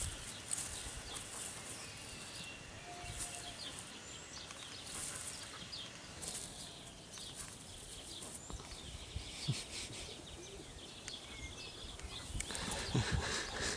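A puppy and a Belgian Shepherd playing: scuffling and rustling movement, louder near the end, with a few faint bird chirps.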